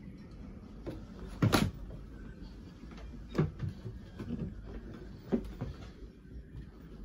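A few sharp knocks and bumps on the boat's wooden cabin fittings, spaced about two seconds apart, the loudest about a second and a half in, over a steady low rumble.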